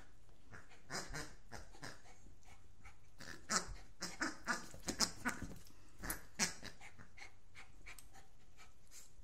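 Pink rubber pig toy being squeezed in a small dog's mouth, giving a run of short, sharp squeaks that cluster between about three and six and a half seconds in.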